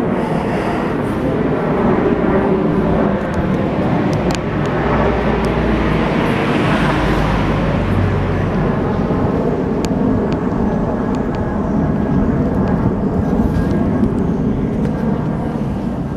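Steady road traffic noise on a city street, with a vehicle passing about six to seven seconds in.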